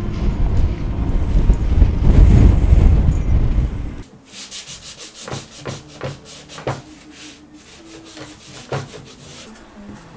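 A loud low rush of outdoor noise cuts off about four seconds in. It is followed by a white cloth or paper towel rubbing over the wooden lid of an Edge Pro Gear paint box, a series of short, irregular wiping strokes.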